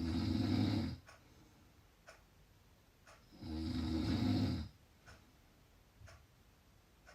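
A person snoring loudly, rhythmically: one snore fading out about a second in and a second from about three and a half to nearly five seconds in, each about a second long, with quiet gaps between.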